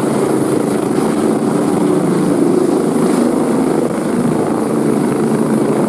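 Eurocopter EC145 helicopter in flight: a fast, steady beat of the main rotor blades over a high, steady turbine whine.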